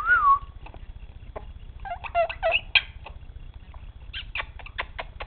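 Quaker parrot (monk parakeet) vocalizing: a short gliding whistle-like call at the start, a burst of chattering about two seconds in, then a quick run of short clicks near the end.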